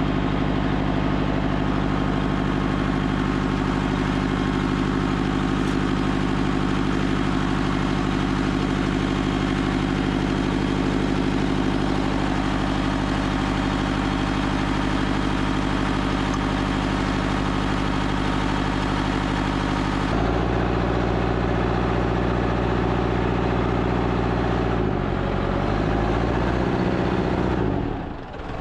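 Backhoe loader engine running steadily. Its note changes abruptly about two-thirds of the way through, shifts again a few seconds later, and dips briefly near the end.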